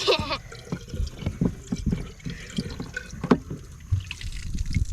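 Water splashing and dripping in short, irregular splashes.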